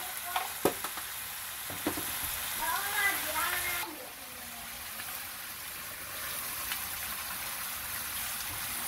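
Smoked duck, potatoes and green onions sizzling in a hot nonstick wok while a silicone spatula stirs them, with a couple of sharp knocks in the first two seconds.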